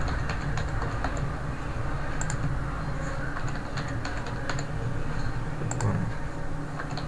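Computer keyboard keys pressed in irregular keystrokes, with a pause of about a second past the middle, over a steady low hum.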